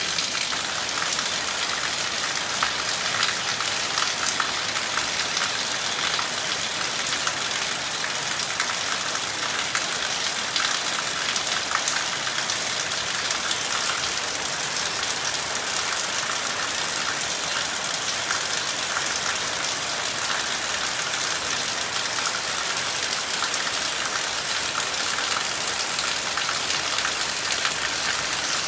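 Heavy rain falling steadily: a dense, even hiss of drops with countless small individual splashes ticking through it.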